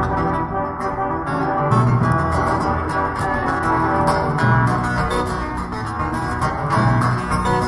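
Acoustic guitar playing quick plucked notes over orchestral accompaniment, with a low bass note swelling every two to three seconds.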